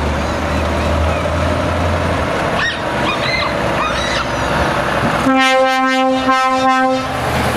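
Renault Trucks T tractor unit's diesel engine running as it pulls away. About five seconds in its air horn sounds for roughly two seconds as a few short toots in quick succession.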